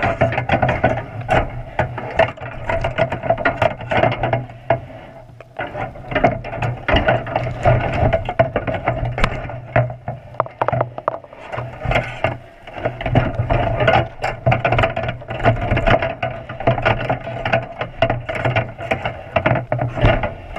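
Underwater knocking and rattling of a wire crab trap as a seal shoves against it and tugs at the bait inside, many irregular sharp knocks over a steady low hum.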